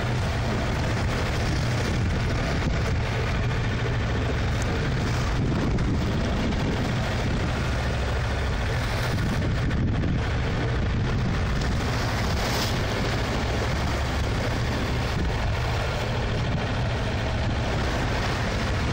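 Strong wind, around 20 knots, buffeting the microphone on a sailing yacht, mixed with the rush of choppy water along the hull. A steady, unbroken rush with a heavy low rumble.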